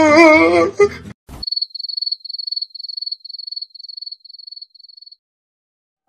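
A wailing voice with a wobbling pitch cuts off about a second in, then a cricket chirping sound effect: about nine high, even chirps, roughly two or three a second, growing fainter and stopping about five seconds in — the classic awkward-silence crickets.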